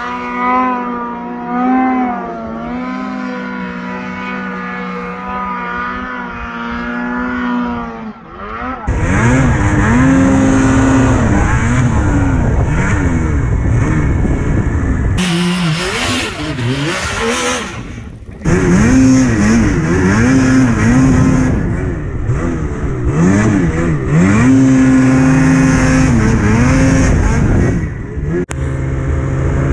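Snowmobile engines revving up and down over and over while the sleds plough through deep powder, in several clips joined together. A stretch of loud rushing noise comes about halfway through.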